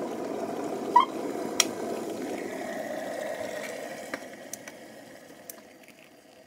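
Electric kettle of hot water: a steady rush of boiling water with a click about a second in, then the hot water is poured into a ceramic mug over a crumbled stock cube. The sound dies away over the last couple of seconds.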